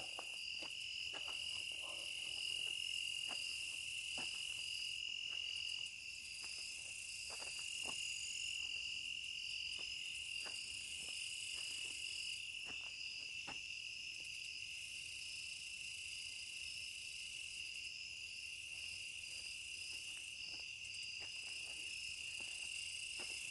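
A night chorus of crickets trilling steadily, one high continuous trill under a higher pulsing chirp, with a few faint clicks scattered through.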